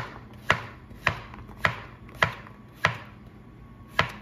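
Chef's knife chopping zucchini on a plastic cutting board: about seven sharp knocks at roughly two a second, with a pause of about a second near the end.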